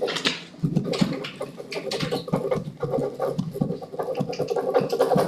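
Papers rustling and being handled on a table, with many small clicks and knocks.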